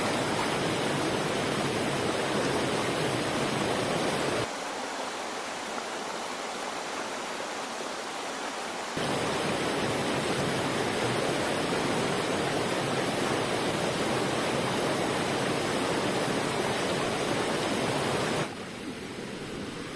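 Shallow stream rushing over rocks: a steady water noise. It drops abruptly about four seconds in, comes back about nine seconds in, and drops again near the end.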